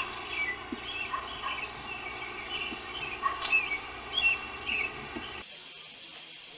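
Repeated short, high chirps and squeaks from a small animal, some sliding in pitch, over a steady hiss; they cut off suddenly about five and a half seconds in.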